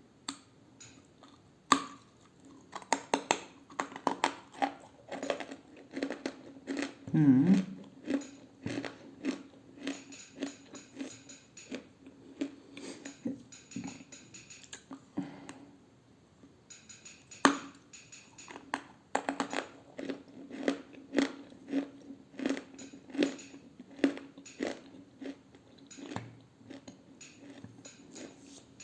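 Pieces of edible clay being bitten and chewed close to the microphone: a sharp bite about two seconds in, then a long run of crisp, crackling chews, with another sharp bite a little past halfway.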